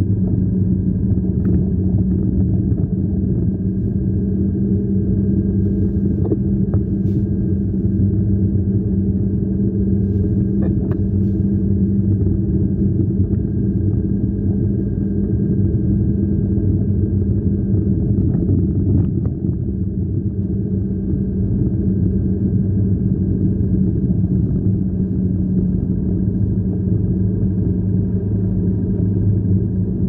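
Car interior noise while driving on a snow-covered road: a steady low rumble of engine and tyres with a constant droning hum and a few faint clicks.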